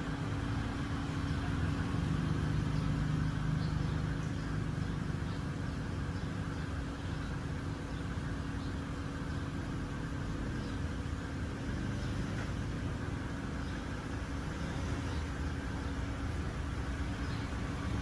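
Steady background rumble with a constant low hum and no clear events.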